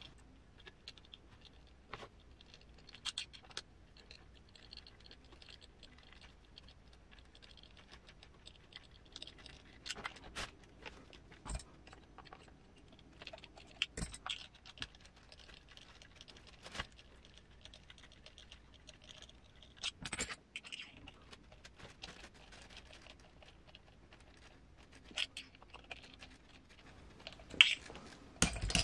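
Scattered light clicks and taps of small parts and a hand tool being handled while a replacement screw is fitted into a scale RC truck's suspension. A louder cluster of clicks comes near the end.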